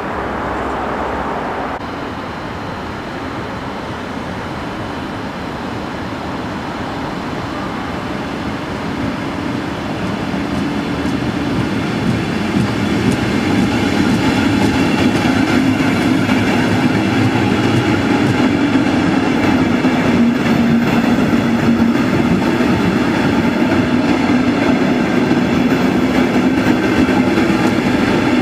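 A train running by, its sound building over the first dozen seconds and then holding steady, with a low hum under the rumble.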